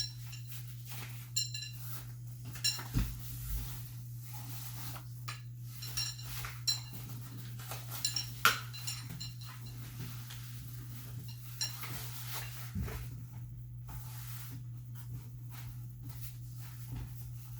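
Scattered clicks and metallic clinks of playpen frame parts being handled and fitted together, a few of them ringing briefly, over a steady low hum.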